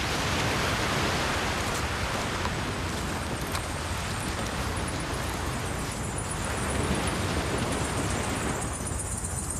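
Beach ambience: a steady, even rushing of wind and sea with no distinct events. A faint high shimmer comes in near the end.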